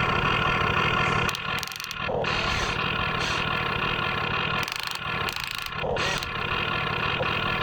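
Radio-controlled model construction machines running, a steady mechanical noise with occasional rising and falling whines, dipping briefly twice.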